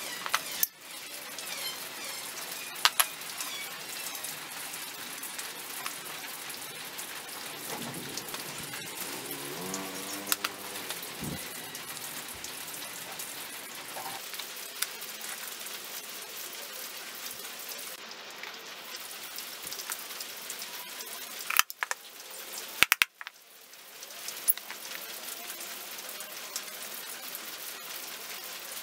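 A steady hiss with a few sharp light clicks and taps scattered through it, from small wooden parts being handled.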